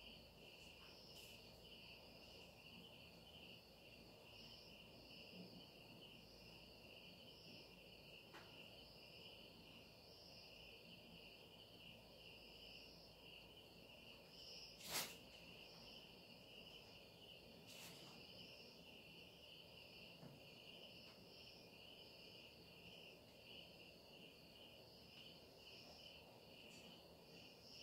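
Faint, steady trilling of crickets, with a single sharp click about halfway through.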